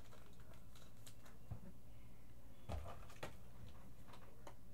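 Faint handling noises: scattered light clicks and a couple of soft knocks, over a steady low hum.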